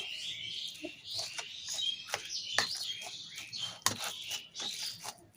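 Small birds chirping repeatedly in the background, with a few sharp clicks and taps of a spoon against a bowl as chopped onion is added.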